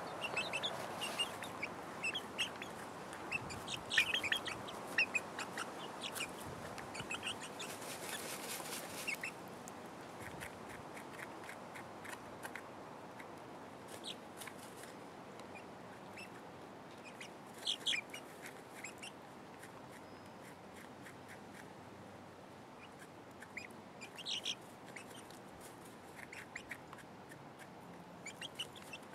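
Hens dust-bathing in sand, giving short, scattered soft clucks and chirps.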